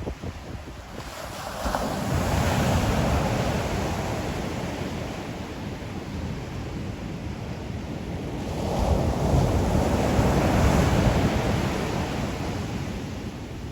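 Ocean waves breaking and washing up the shore, surging twice about six seconds apart, with a low rumble beneath the hiss of the surf.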